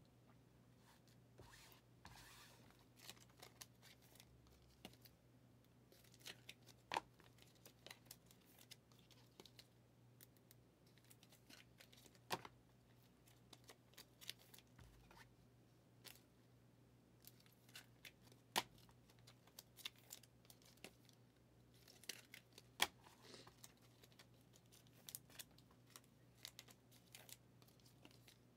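Faint handling of trading cards: scattered soft clicks and light rustling as cards are picked up, shuffled and set down, over a steady low hum.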